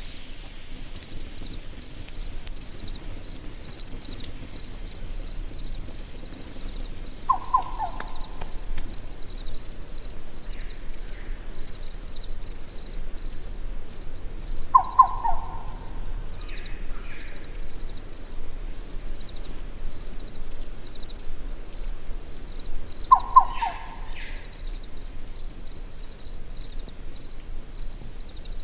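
Night-time insect chorus: a cricket chirping steadily in a rapid, high-pitched pulse. A short, lower call of a few quick notes comes three times, about eight seconds apart.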